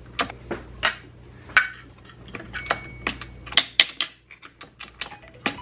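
Irregular metallic clicks and clinks of hand tools and loose parts against the engine: about a dozen sharp knocks, some with a short ring, during work on the Yamaha Blaster engine's kickstarter side.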